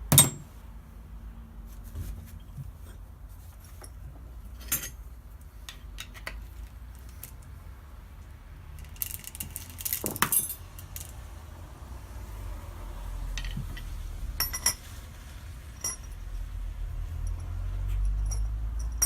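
Metal parts and hand tools being handled on a workbench: scattered light metallic clinks and knocks, with a sharp knock right at the start and a short clattering rattle about ten seconds in.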